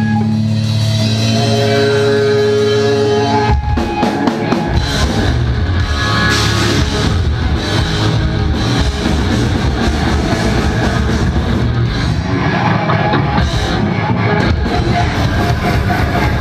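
Live heavy metal band playing loud: held guitar and bass notes ring for the first few seconds, then the drums and distorted guitars come in together suddenly at full tilt.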